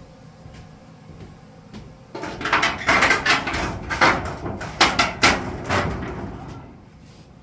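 Corrugated metal sheet rattling and clanking as it is pushed and shifted into place against wall framing. A run of bangs and scrapes begins about two seconds in, is sharpest around the middle, and dies away near the end.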